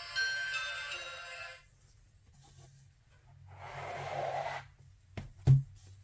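A sound book's small electronic speaker playing the tinkly end of a Christmas tune, which stops about a second and a half in. Near the end a swish and then two sharp knocks, the second one loud, as the board book is shut.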